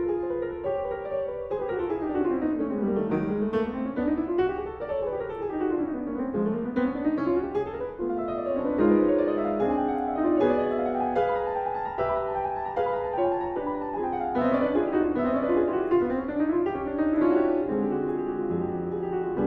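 Background piano music, playing quick runs of notes that sweep down and back up over and over.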